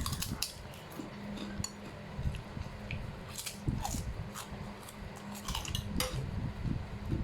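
Cutlery clinking and scraping against a plate while eating: an irregular run of small clicks and taps.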